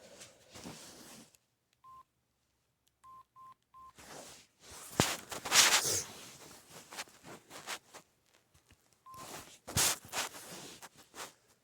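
Samsung SGH-X450 mobile phone's keypad beeping as its buttons are pressed: one short beep about two seconds in, three quick beeps a second later, and one more near the end. Between them come louder bursts of rustling handling noise.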